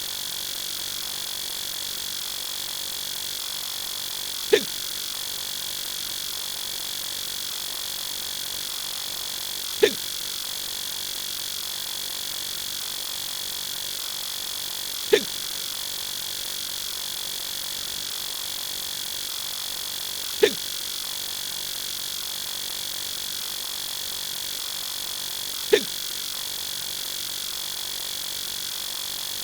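A short, sharp sound effect repeats five times at even intervals of about five seconds, over a steady electronic hum with a high whine.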